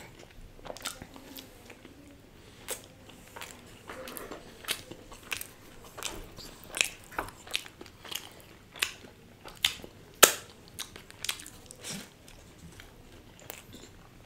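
Close-miked eating sounds: a person biting and chewing cheese burst pizza, with irregular sharp crunches and wet mouth clicks, often a second or two apart.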